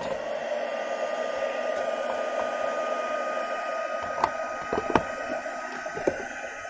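Embossing heat tool blowing hot air steadily to melt gold embossing powder, with a steady high whine from its fan motor. A few light knocks come about four to five seconds in.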